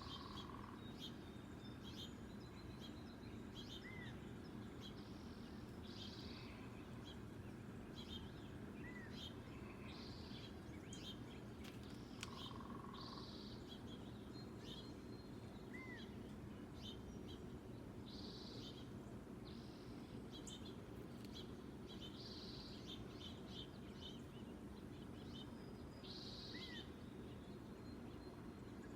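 Birds chirping: short high chirps repeating every couple of seconds, with a few softer arched calls in between, over a steady low background hum.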